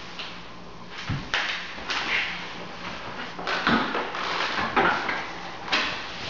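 An applicator pad on a pole swishing in irregular strokes over sanded bare hardwood as floor finish is spread, with a low knock a little past halfway as the pad is dipped into the plastic bucket.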